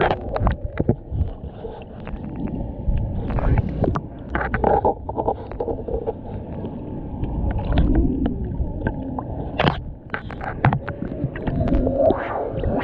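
Muffled underwater sound of flowing water around a submerged camera: a low rumble and gurgling, with scattered clicks and knocks.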